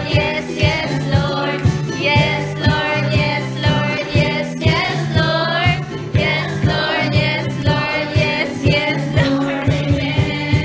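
Live amplified song: a woman singing a melody into a microphone, accompanied by strummed ukulele and guitar, with a steady beat about twice a second.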